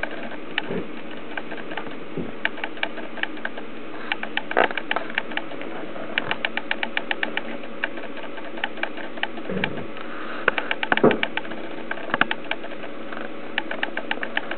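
Rapid runs of small mechanical clicks from a video camera's auto-focus motor, coming in bursts throughout, with a few dull thumps in between.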